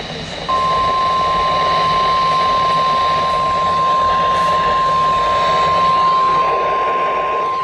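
NOAA Weather Radio warning alarm tone, a single steady 1050 Hz beep that starts about half a second in and holds, over a hiss of radio static. It signals that a tornado warning broadcast is about to follow.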